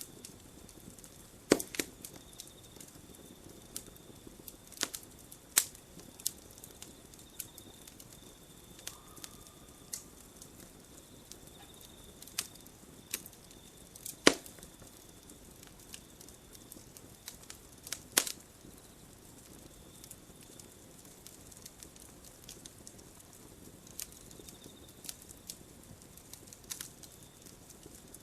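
Campfire crackling: irregular sharp pops and snaps of burning wood over a soft steady hiss, with a few louder snaps standing out.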